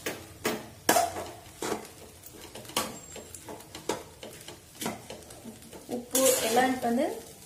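Metal spatula stirring flattened-rice upma in a stainless steel pot, clinking and scraping against the sides in irregular strokes. A voice is heard briefly near the end.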